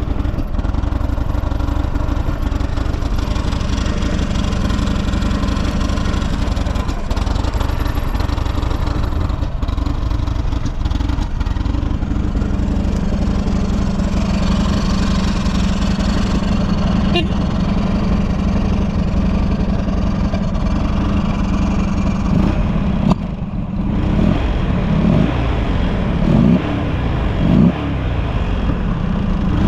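Buell XB12SS Lightning's 1203 cc air-cooled V-twin idling steadily, then revved in about four short throttle blips during the last few seconds. The engine runs with no abnormal noise, as the seller states.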